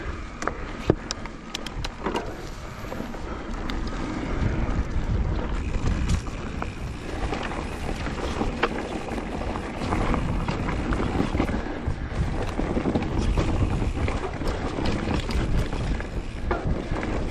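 Mountain bike descending a forest dirt trail: wind rushing over the microphone and tyres rumbling on the dirt, with frequent sharp clicks and knocks from the bike over bumps. There is a single loud knock about a second in, and the riding noise grows louder after the first few seconds.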